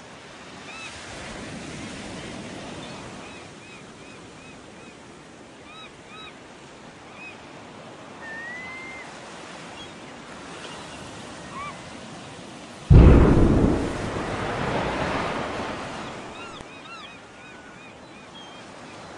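Surf and wind on a beach with scattered short high chirps, then about thirteen seconds in a sudden heavy boom from an underwater nuclear explosion, which rumbles on and slowly fades.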